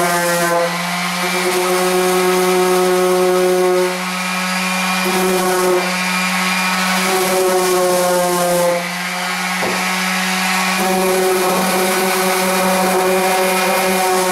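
Electric power sander running steadily as it sands the cured putty repair on a wood edge. Its motor note shifts as it is pressed and eased, with brief dips in level about four, six and nine seconds in.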